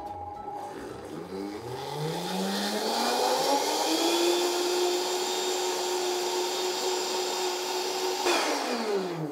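Vitamix blender motor spinning up over a couple of seconds, running steadily at high speed through a load of ice cream and liqueurs, then switched off about eight seconds in and winding down.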